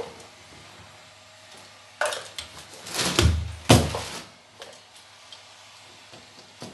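Hands-on carpet-fitting work: a click, then a burst of rustling, knocks and metallic clatter from about two to four seconds in, with two heavy thumps among them.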